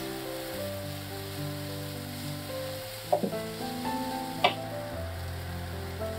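Diced mushrooms, onion and grated tofu sizzling in a non-stick frying pan as a wooden spatula stirs them, with two sharp scrapes or knocks of the spatula against the pan about three and four and a half seconds in. Soft background music with held notes plays throughout.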